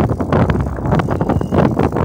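Wind buffeting the microphone of a handlebar-mounted camera on a moving bicycle, with a constant low rumble and irregular clicks and knocks from the bike rattling along the paved path.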